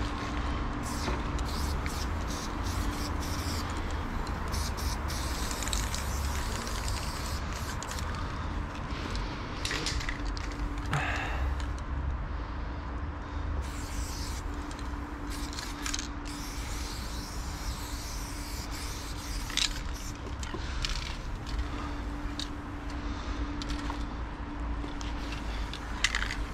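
Loop Colors aerosol spray paint can hissing in repeated short bursts as outline lines are sprayed, over a steady low background rumble.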